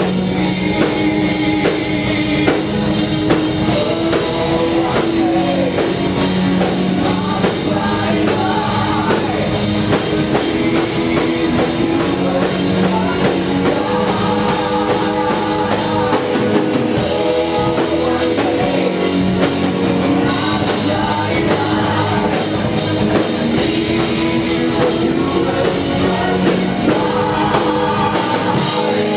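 Live rock band playing, with a male and a female vocalist singing over drum kit and guitars. A little past the middle the deepest bass drops away for a few seconds, then returns.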